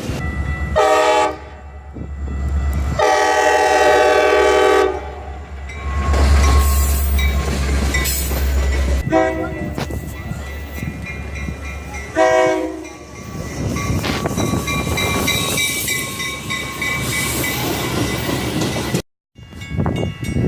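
Train horn sounding four blasts: a short one, a long one of about two seconds, then two more short ones, over the rumble and clatter of a moving train.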